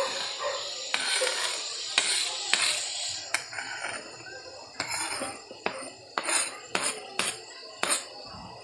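A metal spoon scraping diced pork lung and heart off a cutting board into an aluminium pot, with repeated sharp clinks and knocks against the pot and board. A steady hiss of the meat sizzling in the sautéing pot runs underneath.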